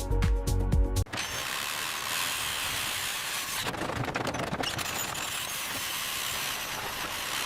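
Electronic music with a heavy beat that cuts off about a second in, followed by steady mechanical noise of construction tool work, with a cluster of clicks near the middle.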